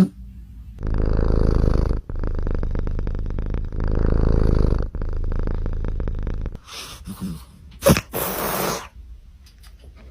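A cat's rattling, purr-like snoring breaths: four long breaths with short breaks between them. About eight seconds in there is a sudden sharp sound, then one shorter breath.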